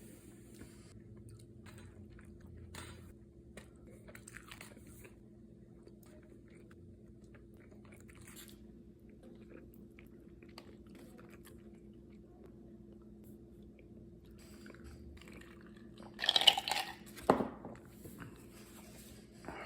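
A person eating: scattered quiet bites and chewing over a faint steady hum, with a louder burst of eating noise about sixteen seconds in.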